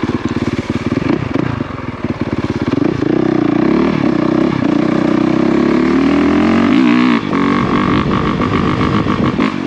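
Honda CRF450RX's single-cylinder four-stroke engine running while riding: uneven lower revs at first, then about three seconds in the throttle opens and the engine pulls high and steady for about four seconds, dipping briefly near the end before picking up again.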